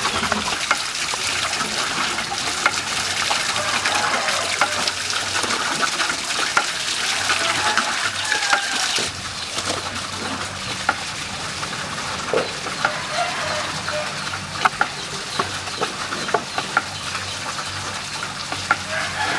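Steady splashing of running water from a garden water wheel, with bird calls and scattered sharp knocks; the water's hiss drops noticeably about nine seconds in.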